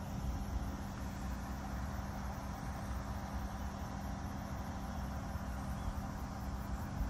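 Steady low engine drone with a constant hum, from the large LNG carrier under way across the water.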